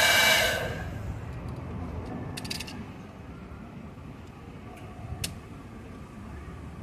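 Hand-held heat gun blowing with a steady high whine, used to soften the glue of car window tint film; it cuts off less than a second in. After that comes a low background rumble with a few light clicks, a short cluster about two and a half seconds in and one more near five seconds.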